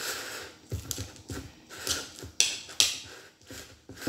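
A spoon scraping and clinking against the inside of a glass jar in irregular strokes as it presses down packed fermented rice and fish, with a few sharper clicks in the second half.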